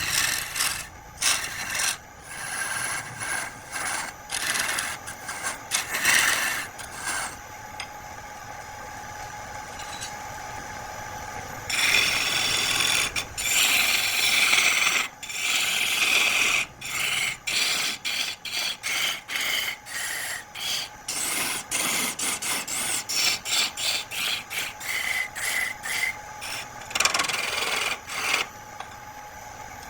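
A turning tool scraping wood on a lathe. There is a longer continuous stretch partway through, then short repeated strokes at about two a second.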